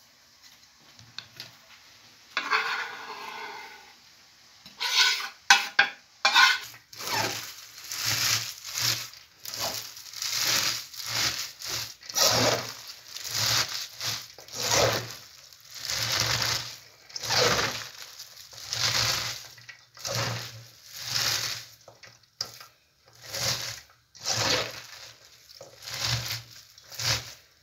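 Shredded white cabbage and chopped greens being tossed and squeezed by hand in a stainless steel bowl: a crisp rustling crunch about once a second, starting about five seconds in.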